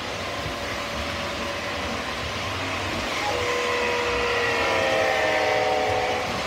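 O scale model trains running on the track, a steady rumble of wheels and motors. About three seconds in, the blue Conrail diesel locomotive passes close and a chord of steady, slightly falling tones sounds for about three seconds, the horn from its sound system.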